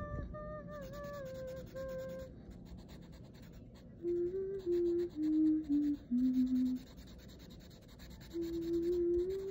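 Black felt-tip marker scratching faintly as it fills in on paper. Over it, a wordless melody of held notes, louder than the scratching: one note near the start, a run of short notes stepping downward from about four seconds in, and a slowly rising note near the end.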